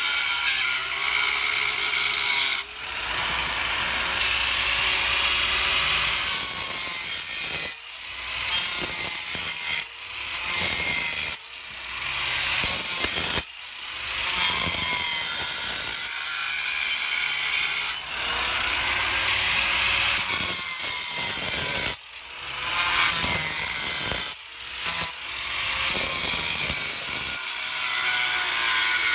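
Ryobi angle grinder cutting V-grooves into a granite stone in a series of short passes. The rough grinding breaks off briefly again and again as the disc is lifted and set back, and the motor's whine rises each time it comes off the stone.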